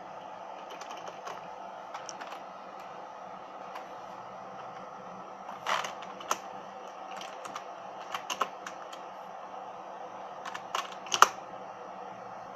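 Scattered key presses on a PC keyboard, single clicks and short runs of two or three, the loudest near the end, answering the BIOS hard-disk auto-detection prompts. A steady hum runs underneath.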